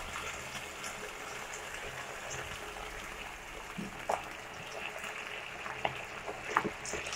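Thick sauce simmering in a frying pan while it is stirred with a wooden spatula: a steady soft bubbling hiss, with a few light knocks of the spatula against the pan about four seconds in and near the end.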